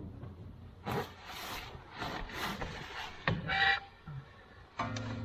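Handling noises from refitting the tractor's PTO drive shaft underneath: scraping and rustling, a sharp metallic click, then a short ringing squeak. Near the end comes a steady, low, horn-like tone about a second long.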